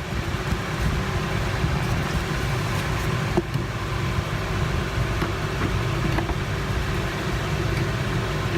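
Steady low fan hum with a few faint small clicks, the sharpest about three and a half seconds in.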